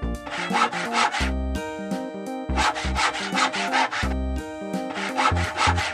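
Hand saw sawing in three runs of quick back-and-forth strokes, over light background music with a bass line.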